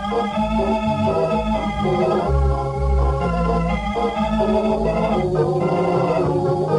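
Organ music, a run of held chords changing every second or so, playing as a bridge between scenes of an old radio drama.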